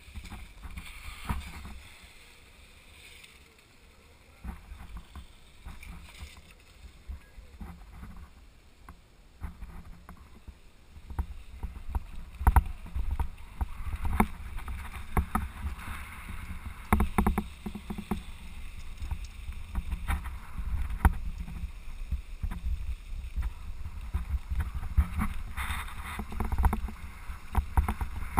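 Mountain bike running down a dirt trail, heard from a camera mounted on the bike: a low rumble of wind and tyres on dirt with rattling knocks from the jolts. It gets louder and rougher from about eleven seconds in.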